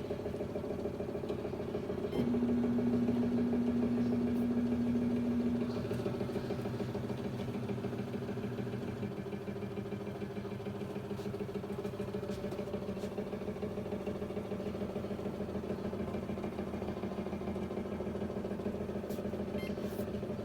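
True 450 treadmill drive motor running with a steady mechanical hum and a strong whining tone. The tone cuts out briefly near the start, returns, and steps slightly lower in pitch twice. This is the motor noise the owner is complaining about.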